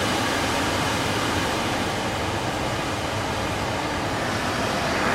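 Car's cabin blower motor fan running, a steady rush of air that does not sound healthy: the owner holds it up as how the fan really sounds, not how it should.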